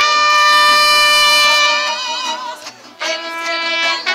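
Live mariachi band playing, with trumpet and violins holding a long note over the strummed guitars. The music drops briefly about three seconds in, then the next held note begins.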